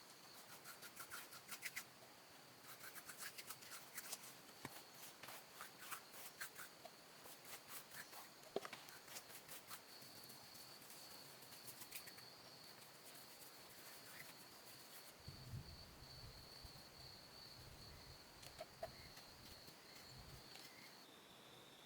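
Faint outdoor ambience: an insect's steady high-pitched buzz, with scattered light clicks and taps through the first half.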